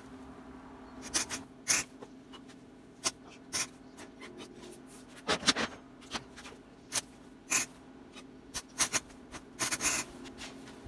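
MIG welder arcing in short crackling zaps, about a dozen and a half at irregular spacing, some in quick clusters, as a nut is tacked onto a seized bolt to get it out. A steady low hum runs beneath.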